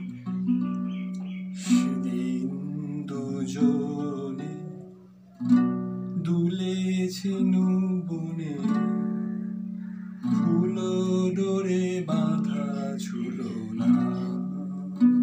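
Yamaha nylon-string classical guitar played fingerstyle: phrases of plucked melody over ringing chords, with a brief lull about five seconds in.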